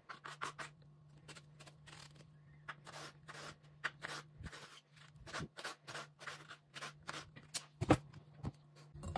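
Kitchen knife chopping eggplant on a wooden cutting board: a quick, irregular run of cuts, several a second, with one louder knock near the end. A steady low hum runs underneath.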